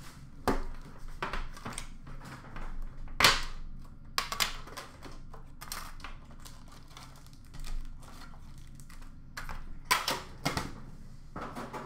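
Hands handling a metal trading-card tin and its foil-wrapped card packs: irregular clicks, taps and short crinkles as the tin is worked open and the packs are taken out and dropped into a bin.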